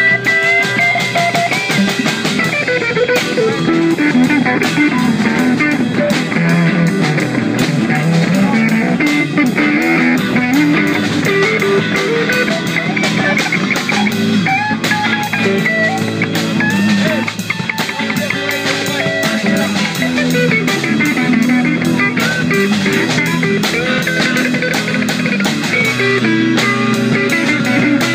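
Rock music played on guitar with a drum kit, with no singing; the guitar's melody line moves up and down over a steady beat.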